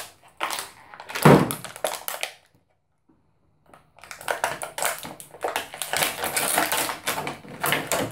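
Thin clear plastic bag crinkling and crackling as it is handled and pulled open by hand, with a pause of about a second and a half near the middle.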